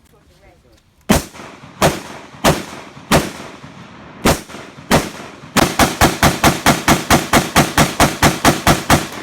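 Gunshots: six single shots about two-thirds of a second apart, then a fast, even string of about eighteen shots at roughly five a second.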